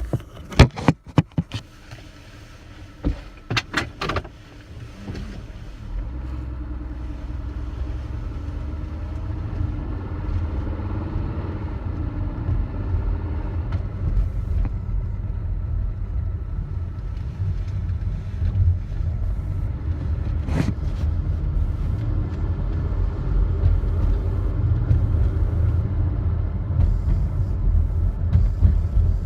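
Ford Flex driving slowly over a bumpy road, heard from inside the glovebox: a few knocks in the first four seconds, then a steady low road and engine rumble. Near the end comes the buzz over bumps, like a shaken light bulb with a broken filament, that the owner is trying to track down.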